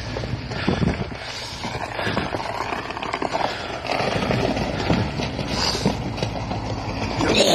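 KamAZ truck's diesel engine running as it crawls slowly, its tyres churning through slush and water on a flooded ice crossing.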